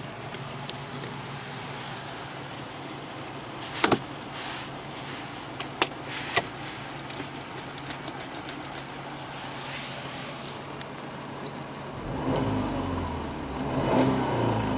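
A 1999 Subaru Legacy 2.0i's flat-four boxer engine idling steadily, heard from the cabin, with a few sharp clicks and knocks about four to six seconds in. Near the end the engine is revved briefly to about 3000 rpm, rising and then falling back toward idle.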